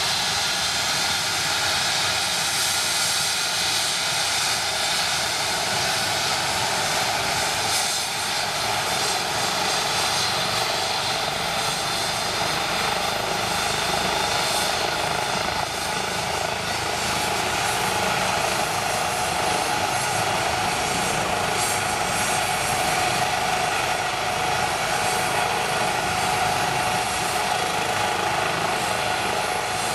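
Eurocopter EC135 trauma helicopter with a fenestron tail rotor running steadily on the ground: an even turbine and rotor rush with a steady high whine, the engines turning before lift-off.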